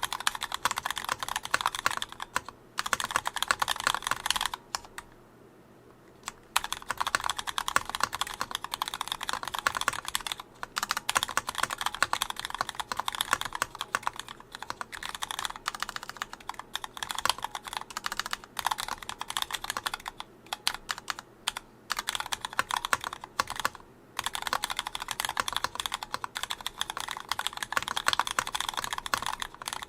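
Typing on a Gon MX Mini 75% custom mechanical keyboard with stock retooled Cherry MX Black linear switches, unlubed, and a case bottom filled with Sorbothane. A dense run of keystrokes, broken by a pause of about two seconds near the start and a few shorter ones.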